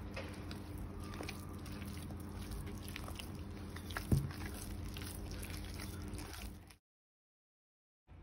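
Soft, oily bread dough being kneaded by hand in a glass bowl: squelching and sticky smacking noises, with one louder thump about four seconds in. The sound cuts out abruptly about a second and a half before the end.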